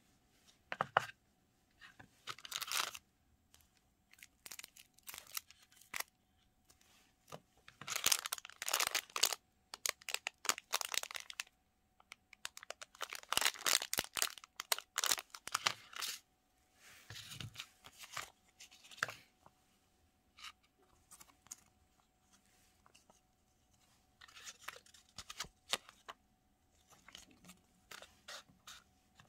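Thin clear plastic packaging bag being crinkled and pulled open by hand, in several irregular bursts of crackling and tearing, with quieter handling of paper and a cardboard box in between.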